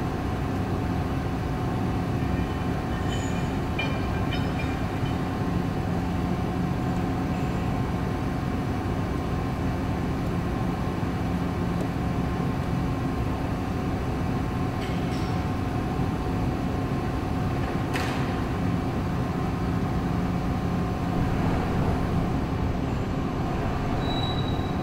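CNC multitasking lathe machining a metal drive shaft with flood coolant: a steady machine hum with several held tones under the hiss and splash of coolant. A single sharp click comes about three-quarters of the way through, and a brief high tone sounds just before the end.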